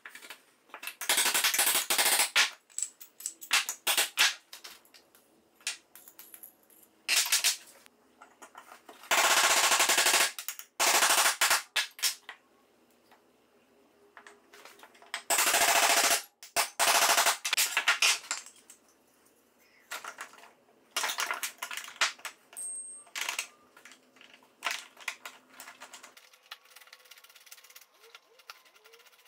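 Steel clamp hardware clattering on a workbench as threaded rods and barrel nuts are handled and fitted: repeated loud bursts of rapid metallic clicking, each about a second long, with lighter clicks between.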